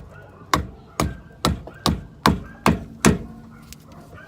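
Hammer blows knocking at a stuck bolt: about seven sharp strikes in a steady rhythm, roughly two a second, growing louder toward the end.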